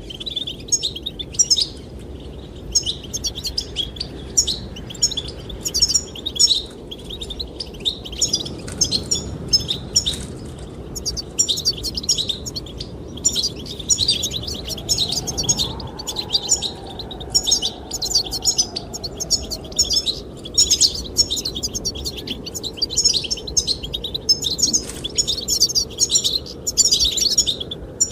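Goldfinches singing, a dense, continuous run of quick twittering chirps, over a steady low rush of wind.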